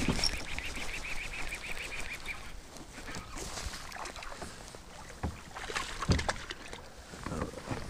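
A fishing reel being cranked in fast with a rapid ticking whir for the first two and a half seconds. A hooked small largemouth bass then splashes twice at the kayak's side, a little after the middle.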